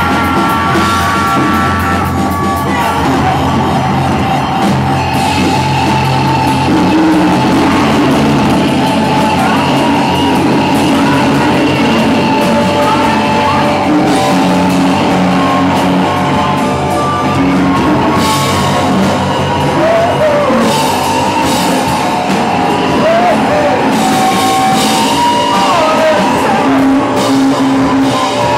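Loud live noise-rock band: heavily amplified guitar and drums forming a dense, continuous wall of sound, with yelled vocals and sustained high squealing tones riding over it.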